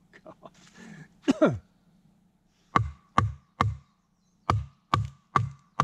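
TOPS Bushcrafter Kukri 7.0 machete blows splitting knotty softwood. A few light knocks, then two loud cracks a little over a second in; from about three seconds in, a steady run of strikes about two a second, each a deep thud with a ringing tone.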